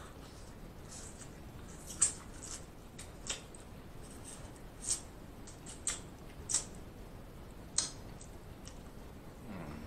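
Close-miked eating sounds from snow crab legs: a string of about seven short, sharp smacks and crackles, spaced irregularly, as the crab meat is sucked and bitten out of the shell, with quiet chewing in between.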